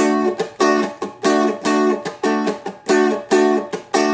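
A Seagull Merlin strummed in a steady rhythm, about three or four strokes a second. The chords are choked short between strokes by easing the fretting-hand pressure off the strings to mute them. The strumming stops at the very end.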